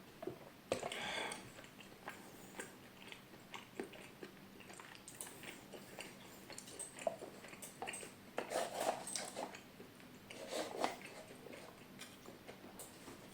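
Close-miked eating sounds: chewing and biting, with scattered short mouth clicks and a few louder bursts of chewing.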